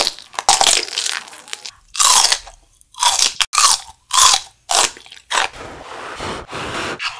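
Close-miked eating sounds: about eight loud, crisp crunching bites into raw celery and broccoli and a kielbasa sausage, then softer chewing near the end.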